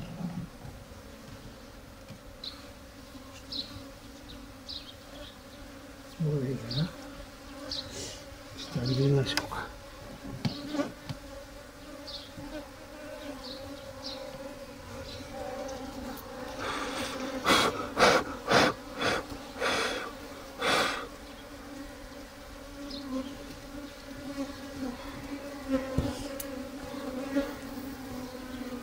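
A swarm of Japanese honeybees buzzing, a steady low hum that swells briefly twice. A little past the middle comes a run of about six sharp knocks.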